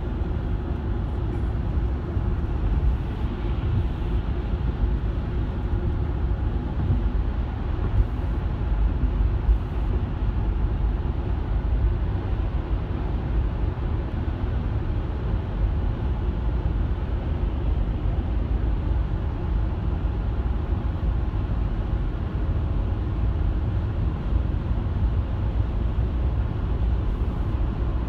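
Steady engine and road rumble heard from inside a car cabin while driving through a road tunnel.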